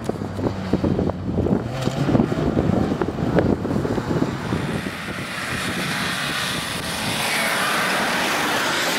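Off-road 4x4 engine running hard up a dirt slope, with crackling of gravel and dirt under the tyres. About halfway through, the engine fades under a steady rushing noise.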